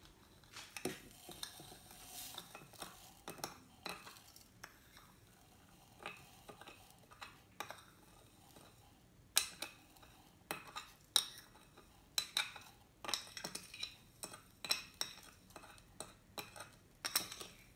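Metal spoon scraping and tapping on a plate as sugar is pushed off it into a blender jar. Irregular sharp clinks, sparse at first and more frequent and louder from about halfway through.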